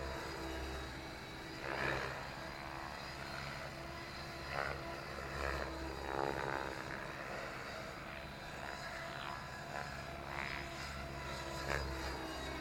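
Radio-controlled helicopter flying 3D aerobatics: its rotor and motor run steadily, with several louder swells as it manoeuvres.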